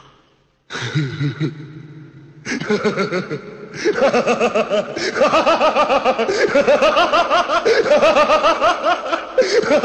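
Laughter: a long string of quick ha-ha bursts that starts about a second in and grows louder and denser from about four seconds, over a low hum at first.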